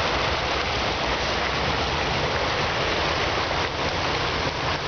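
Steady rush of water splashing into a rock-edged pond from a water feature.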